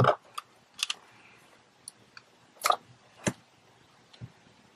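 Handling noise on a wooden desk: a loud knock right at the start, then a string of lighter clicks and taps as a phone and packaged gear are handled and set down.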